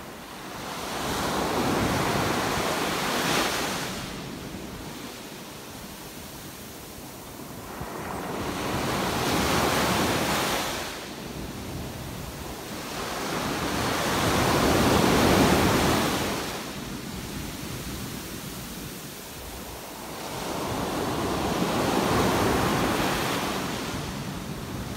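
Small ocean waves breaking on a sandy beach and washing up the shore: four waves in turn, each a hiss that swells over a few seconds and dies away.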